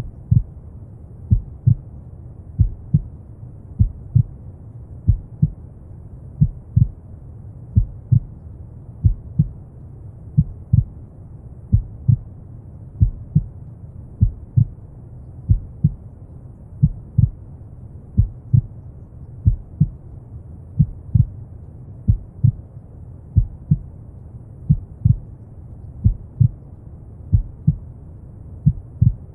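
A slow heartbeat, paired lub-dub thumps at about 45 beats a minute, over a steady deep rumble of brown noise.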